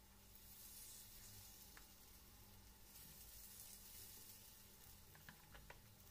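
Oil faintly sizzling in a frying pan as spoonfuls of carrot and cauliflower fritter batter go in, with a few light clicks near the end.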